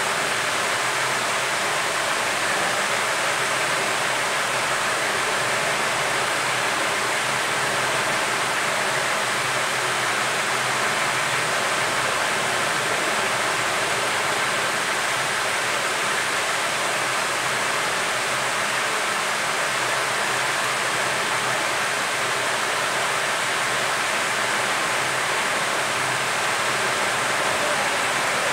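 Hot air rework station blowing a steady, even hiss of air from its handpiece onto a mobile phone's circuit board, with a faint steady whine.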